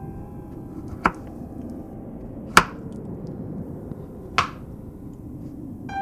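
Kitchen knife chopping through a beetroot onto a cutting board: three separate sharp chops, a second or more apart, the middle one loudest.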